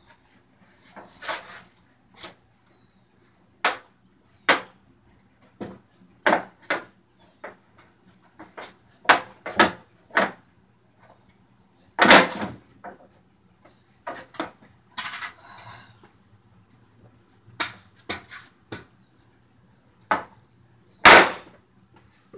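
Skateboard knocking and clacking against a wooden plank and the floor as tricks are tried on it: sharp, separate knocks at irregular intervals, the loudest about twelve and twenty-one seconds in. About fifteen seconds in there is a rougher noise lasting about a second.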